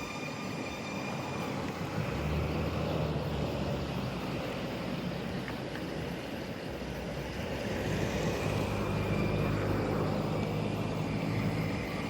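Steady engine and road noise of a moving road vehicle, the engine hum rising a little about two seconds in and again later on.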